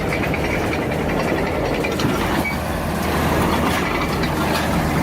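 Heavy machinery engine running steadily under load, a constant low mechanical drone.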